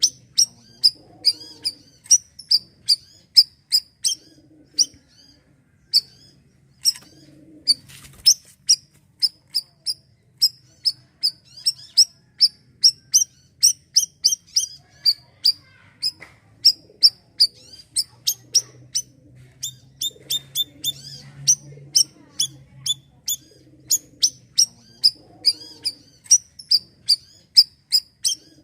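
Bayeman (siri-siri) songbird calling non-stop: a fast series of short, sharp, high chirps, about two to three a second, in runs broken by brief pauses.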